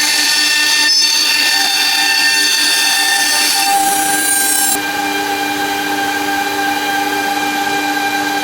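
Spindle of a CNC wood router running with a steady high whine while cutting, with a hiss of cutting over it. About halfway through the hiss stops abruptly and the whine carries on alone.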